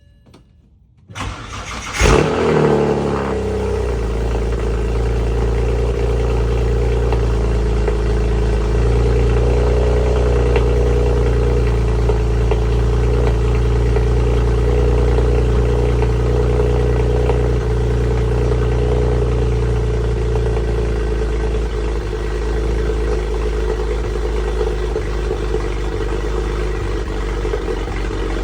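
BMW 335i's N54 twin-turbo straight-six cold-starting: the starter cranks about a second in, the engine catches with a loud flare, then settles into a steady fast idle that eases slightly near the end. The owner thinks it sounds like it is misfiring on the cold start.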